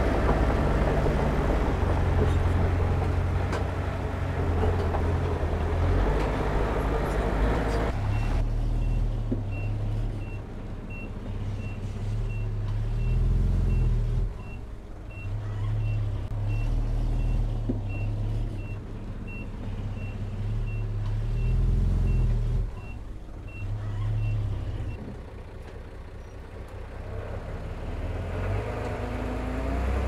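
Bulldozer's diesel engine working, its low drone swelling and easing with the load. About nine seconds in a reversing alarm starts beeping steadily, about three beeps every two seconds, and stops about twenty-five seconds in.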